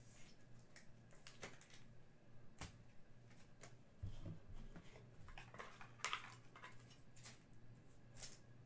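Faint rustles and clicks of trading cards being flipped through and handled, over a low steady hum, with a soft thump about four seconds in.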